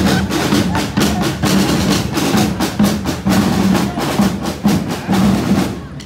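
Parade drum band playing, its drums beating a fast, steady rhythm over a held low tone.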